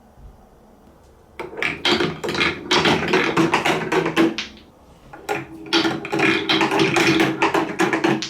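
Marbles rolling down plastic TrixTrack wave-slope marble-run track, clicking rapidly over the joints and bumps with a steady rolling hum. It comes in two runs: the first starts about a second and a half in, and the second about five seconds in.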